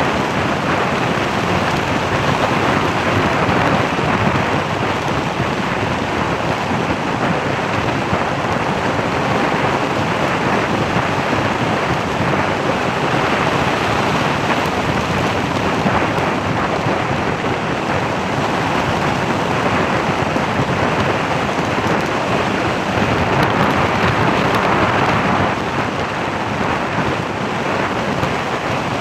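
Steady, loud rushing noise of wind and road noise from a moving vehicle, swelling slightly at times.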